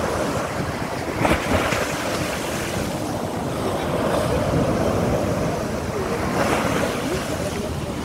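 Sea waves breaking and washing up a beach in a steady rush of surf, with a brief sharper crash about a second in.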